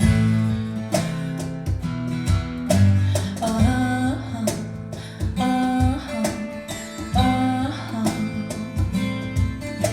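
Rock song played back through hi-fi loudspeakers and recorded in the room: an instrumental passage of guitar with bent, sliding notes over bass and a steady beat, no singing.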